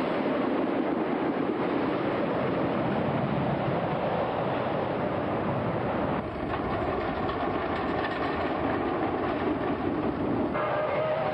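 Timber Wolf wooden roller coaster train rolling and rattling along its track, a steady rumble that changes abruptly about six seconds in and again near the end.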